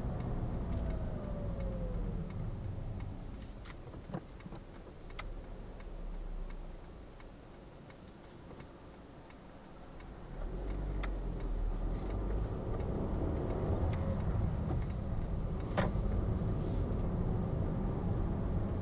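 Engine and road noise inside a car as it slows to a stop, idles quietly for a few seconds, then pulls away and picks up speed again. The turn indicator ticks steadily throughout, with a few sharp clicks along the way.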